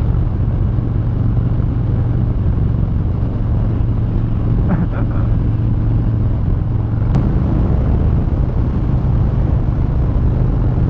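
Harley-Davidson Low Rider S Milwaukee-Eight 114 V-twin running at a steady cruising speed, its low drone under heavy wind rush. A single sharp click about seven seconds in.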